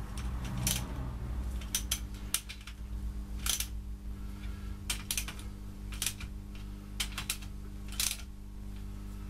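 Socket ratchet clicking in short bursts about once a second as it snugs up the main bearing cap bolts on an Austin A-Series 1098cc engine block, the bolts only lightly pinched up. A steady low hum runs underneath.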